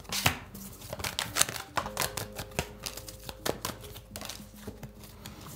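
A deck of tarot cards being shuffled and handled, making a string of irregular clicks and snaps as the cards slide and tap against each other.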